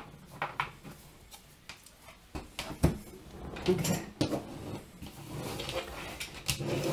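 A deck of oracle cards being picked up, handled and shuffled on a tabletop, with scattered light taps and clicks and a sharper knock about three seconds in.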